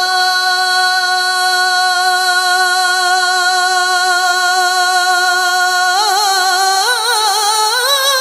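A naat singer holds one long, steady note for about six seconds, then breaks into a wavering, ornamented run that climbs in pitch.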